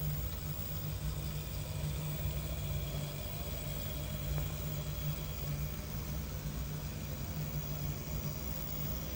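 HO-scale brass PFM three-truck Climax model locomotive running slowly along the track: a steady hum from its motor and gearing.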